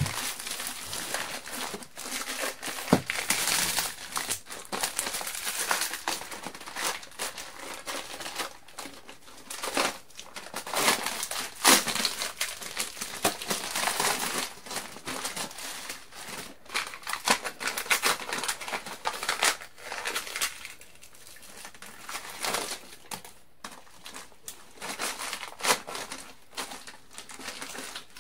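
A roll of chicken wire being opened and unrolled by hand: the wire mesh crinkles and rattles in irregular spells, full of small clicks.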